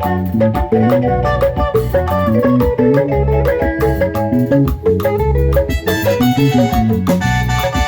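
Band music: a plucked guitar melody over bass guitar, with a steady beat.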